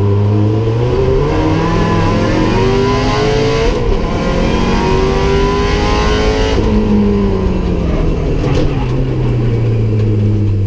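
Rally car engine heard from inside the cabin, accelerating hard: its pitch climbs, drops at an upshift about four seconds in, climbs again, then falls away when the throttle comes off at about seven seconds, settling to a lower, steadier note.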